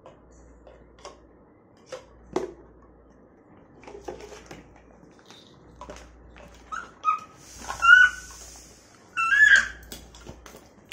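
Plastic toys knocking and clicking as they are handled. In the last few seconds a toddler makes high, bending squeals and vocal sounds.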